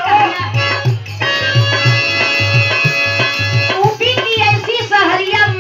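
Live Indian folk music: a dholak keeps a steady beat under a woman's singing, and in the middle a harmonium holds a chord for about two and a half seconds between sung phrases.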